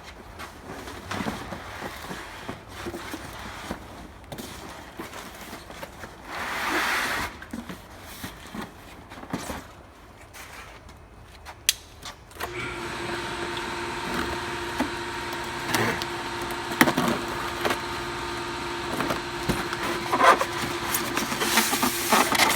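Cardboard box and packaging being opened and handled, with rustling, scraping and scattered knocks. About halfway through, a steady mechanical hum with a held tone starts and keeps running under the handling.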